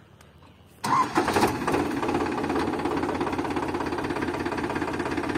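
A Powertrac tractor's diesel engine starting up: it catches abruptly about a second in and settles into a steady, rhythmic idle.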